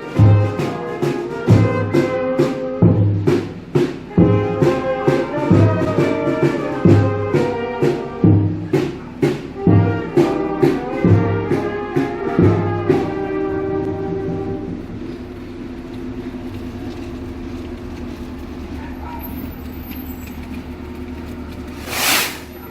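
Brass band with drums playing a march-like tune, a deep beat about every second and a half under sharp cymbal or snare hits, breaking off about 14 seconds in and leaving a held note over steady street noise. A short, loud burst of noise comes just before the end.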